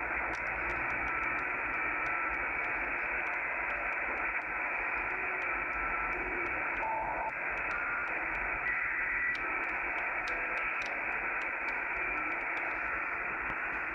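HF band noise from a Kenwood TS-850SAT shortwave transceiver: a steady static hiss that sounds muffled, as it is cut off by the receiver's narrow filter. A few brief faint whistles from carriers come through near the middle.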